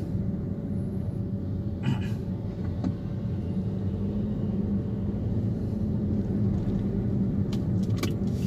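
Car engine and tyre noise heard from inside the cabin while driving: a steady low hum, with a couple of brief clicks about two seconds in and near the end.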